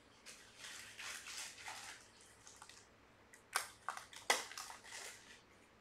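Faint rustling from handling trading cards and their plastic holders, with two sharp clicks a little over halfway through, then more rustling.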